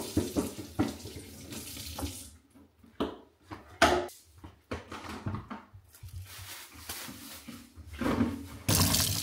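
Kitchen tap water running into the sink while vegetables are rinsed, uneven, with a few knocks of handling. Near the end the tap is turned up to a steady, louder stream.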